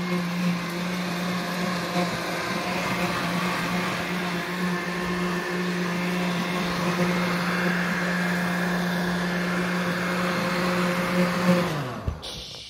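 Oster blender motor running steadily under load, blending a banana into a thin liquid. Near the end the motor is switched off and its hum falls in pitch as it winds down to a stop.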